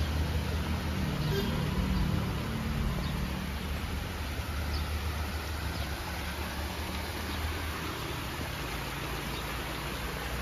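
A vehicle engine running with a low steady hum that fades away over about the first six seconds, over a steady hiss of outdoor noise.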